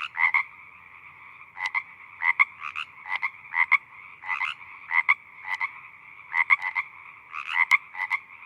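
An animal chorus: short calls repeating several times a second, in irregular clusters, over a steady two-pitched drone.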